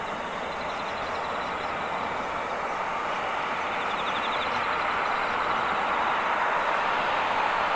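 Turbofan engines of a J-AIR Embraer E-Jet regional airliner at taxi power: a steady rushing jet noise with a faint high whine, growing gradually louder as the jet approaches.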